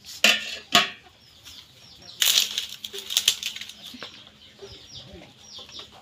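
Dry bamboo sticks and straw rustling and clattering as they are handled, in a few loud bursts. Small birds chirp over it, short falling chirps repeated throughout.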